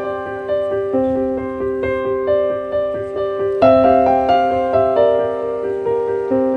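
Background piano music: a steady, gentle run of single notes, about three a second.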